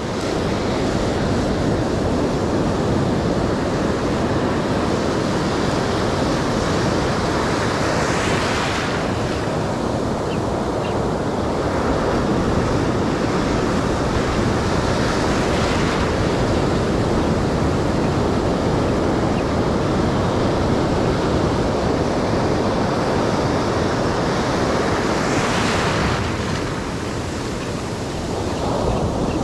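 Ocean surf breaking and washing in shallow water, a steady rush with louder surges about eight seconds in and again near twenty-six seconds, with wind on the microphone.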